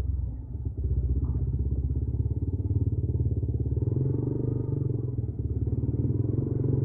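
Yamaha New Vixion motorcycle engine running steadily, with a short dip in level just under a second in.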